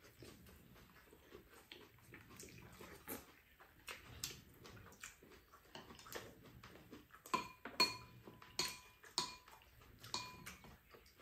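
Metal spoon tapping and scraping against dishes during a meal, with a handful of sharper ringing clinks in the second half.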